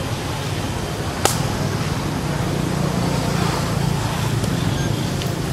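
Steady low rumble of an engine running, with one sharp click about a second in.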